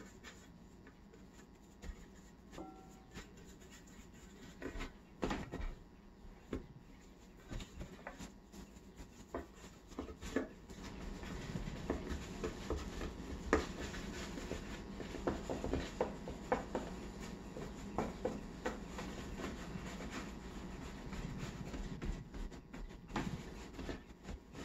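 Hands rolling and pressing white-wheat bread dough on a floured wooden board: soft rubbing and patting with scattered light knocks against the wood, growing denser and busier about halfway through.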